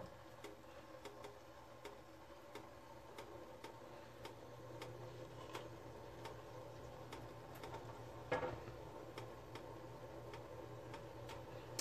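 Faint, regular ticking, a little more than one tick a second, over a steady low hum. About eight seconds in comes a light metal clink as a small metal cup dips into a saucepan to skim fat off heating au jus.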